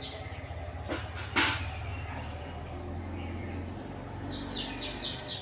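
Rural outdoor ambience: a bird calls with a run of short, quickly repeated falling chirps in the second half, over a steady low rumble. A single sharp snap or knock comes about a second and a half in.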